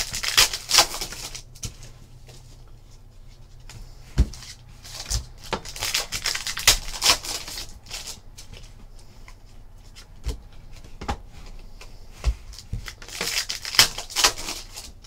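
Trading cards and a foil pack wrapper handled by hand: cards sliding against each other and the wrapper crinkling, in several spells of rustling with a few sharp taps between.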